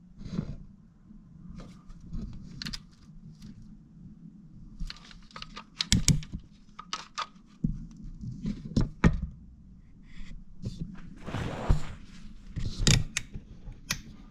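Irregular metallic clicks, clinks and knocks as timing-chain parts and hand tools are handled and worked into place on an engine front, over a steady low hum.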